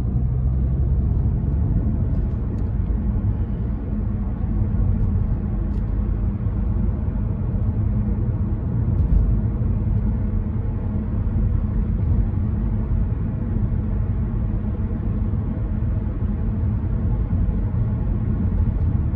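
In-cabin running noise of an Audi A3 e-tron plug-in hybrid, a steady low rumble of road noise and its 1.4 TFSI petrol engine, which runs in Hybrid Hold mode. The car speeds up from 50 to about 80 km/h in the first seconds and then cruises. A low bump comes about nine seconds in.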